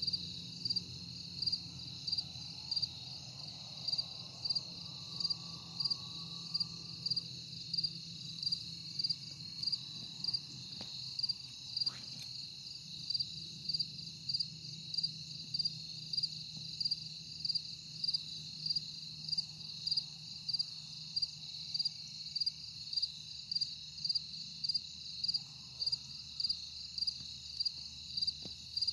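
Crickets chirping in a steady, even rhythm of about three loud pulses every two seconds over a continuous high trill.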